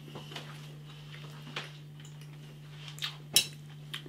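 Cutlery scraping and clinking against a dish during eating, in scattered light strokes with one sharp clink about three and a half seconds in.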